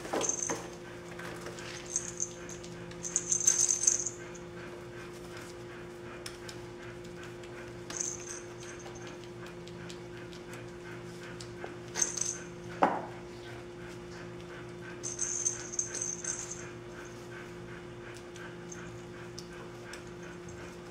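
Puppies about four weeks old giving short high-pitched squeaks and whimpers on and off as they play, with a couple of sharp knocks, one near the start and one about two-thirds of the way through.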